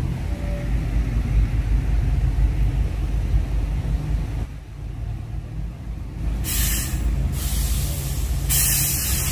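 Heavy diesel trucks rumbling under throttle as a trailer with a 60-tonne load is pushed up an incline by the truck behind it. From about six seconds in come three loud hisses of released air, one after another.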